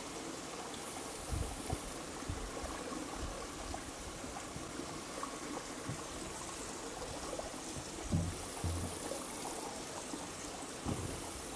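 Steady, even outdoor hiss, with a few brief low rumbles, the strongest about eight seconds in.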